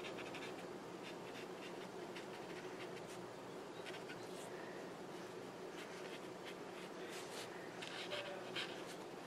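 Tombow water-soluble brush marker stroking on paper: faint, short scratchy strokes now and then, over a steady low room hum.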